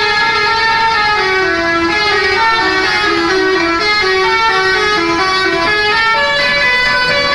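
Telolet basuri musical bus horn playing a tune. Several horn notes sound together and change pitch in steps, over the noise of the bus.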